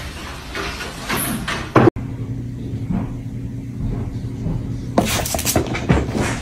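Scuffs and clicks, then a steady low hum with a cluster of knocks and thumps about five seconds in as a cat pounces after a ball on a wooden floor.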